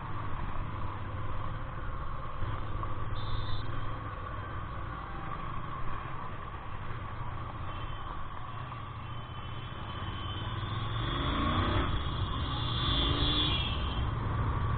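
Riding sound of a Royal Enfield Interceptor 650: its parallel-twin engine runs steadily under road and traffic noise. The low rumble grows louder about eleven seconds in.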